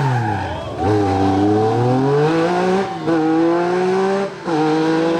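MG Metro 6R4 Group B rally car's V6 engine at full racing revs. The note falls briefly off the throttle at the start, then climbs hard, dropping sharply at an upshift about three seconds in and again near the end before climbing once more.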